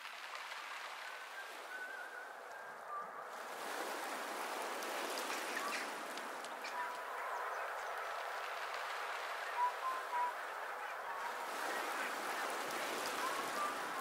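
Water washing over shingle with a steady hiss, while a flock of birds gives short calls on and off throughout.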